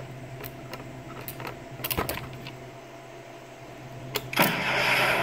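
A few sharp clicks from a 3D-printed prop M72 LAW launcher's safety and trigger, then, a little over four seconds in, a sudden loud rushing whoosh as the launcher fires.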